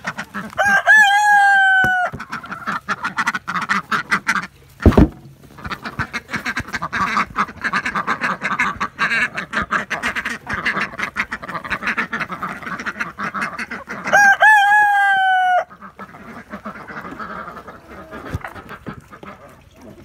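A flock of chickens and ducks feeding on scattered dried mealworms, with busy clucking and rapid ticking of pecks. A rooster crows twice, once about a second in and again about two-thirds of the way through. There is one loud thump about five seconds in.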